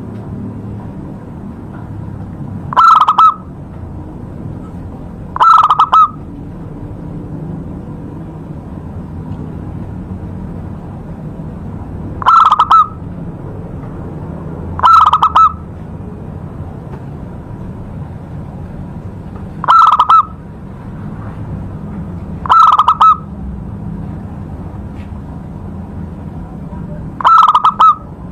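Zebra dove (perkutut) cooing: seven loud short calls, coming in pairs about two and a half seconds apart, with a pause of several seconds between pairs. A steady low hum runs underneath.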